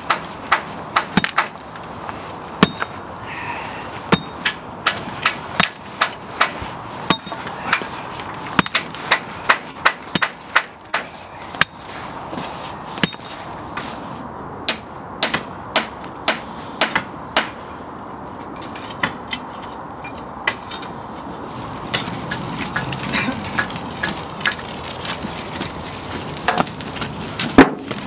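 Hammer blows on metal: many sharp knocks in irregular runs, often two or three a second, thinning out in the second half.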